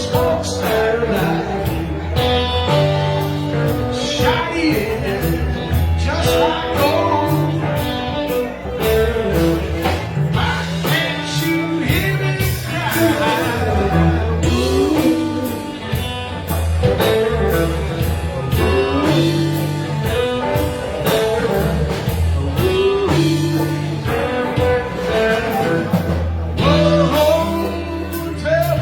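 A live band playing a blues number with a steady beat, with singing over it.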